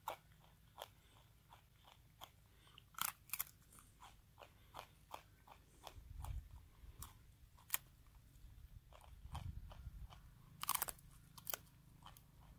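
A wallaby biting and crunching dry noodles held in a man's fingers: a string of short, sharp, irregular crunches, a few each second.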